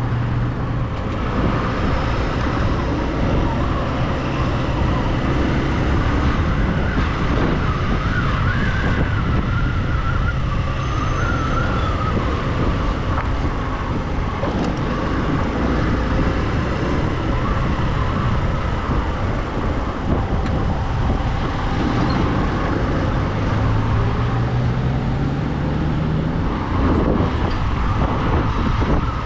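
Motorcycle engine running while riding slowly in town traffic, with road and wind rumble. The engine revs up briefly a little before the end, and a wavering higher tone comes and goes about a third of the way in.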